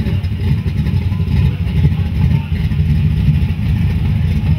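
Drag-race street car's engine running at a loud, uneven idle as the car creeps forward in the staging lanes.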